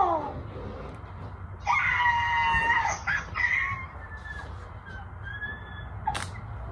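A person's high-pitched squeal of joy at good news, one long held squeal with a short falling squeal before it and another short one after, then faint whimpering.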